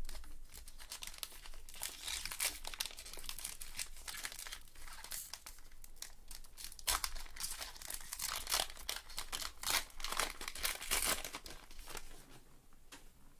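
Wrapper of a 2022 Topps Gypsy Queen baseball card pack crinkling and tearing as gloved hands rip it open: a run of irregular crackles that dies down near the end.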